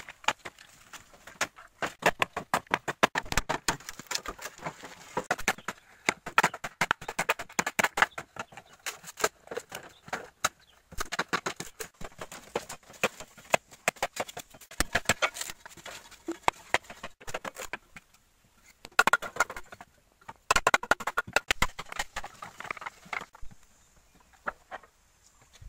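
Bamboo poles being split and handled: irregular runs of sharp clacks and cracks, broken by short pauses a little past the middle and near the end.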